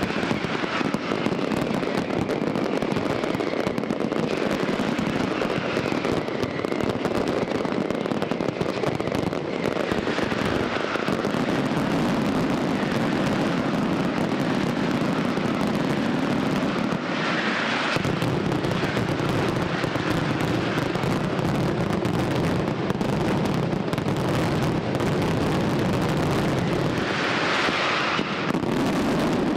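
Fireworks display: a dense, unbroken barrage of aerial shell bursts and crackling, with no let-up in loudness.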